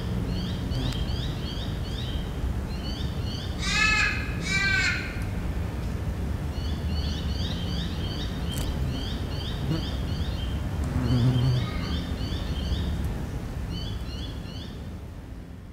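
Bush ambience: a bird gives two loud calls about four seconds in, over quick high chirps that repeat throughout and a low rumble, all fading out at the end.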